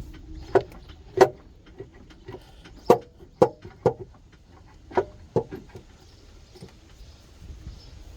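Hand tools knocking and clunking against the engine as the timing cover is worked loose: about seven sharp, irregularly spaced knocks over the first five and a half seconds, then only low background.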